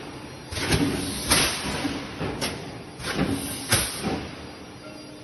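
TMP Voronezh KB8542 1600-ton mechanical hot forging press running through its strokes: sharp metallic clanks come in pairs about half a second apart, and the pairs repeat roughly every two and a half seconds.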